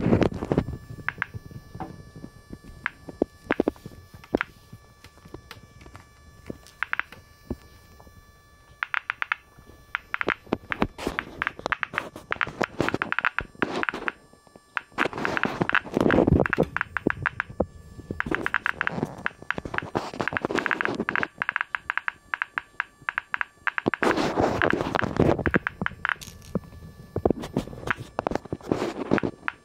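Wallac RD-5 Geiger-Müller counter clicking. Sparse clicks at the background count rate for the first several seconds, then fast runs of clicks as a radioactive source is brought near the probe, mixed with some handling noise.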